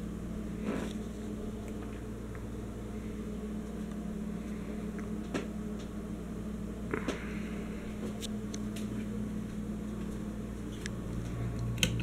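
Encon Casanova ceiling fan running at speed: a steady low motor hum, with a few faint clicks along the way.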